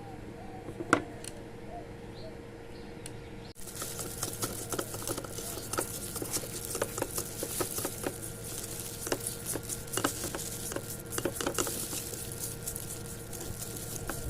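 Small metal parts of a bicycle pedal being handled: one sharp clink about a second in, then, from about three and a half seconds in, a dense run of quick, irregular light clicks and ticks.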